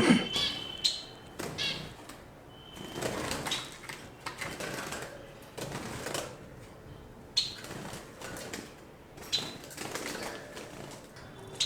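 Newly caged pair of cockatiels: a few short, high chirps. Scattered sharp clicks and rattles come as the birds move about the cage.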